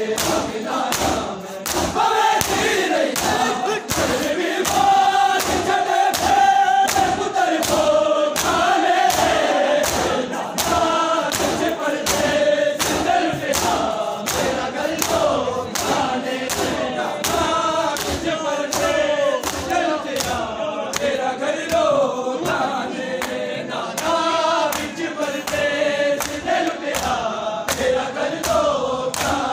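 Large group of men chanting a lament in unison while beating their chests in matam. The hand strikes on bare chests land as a steady rhythm of slaps, roughly two a second, under the singing.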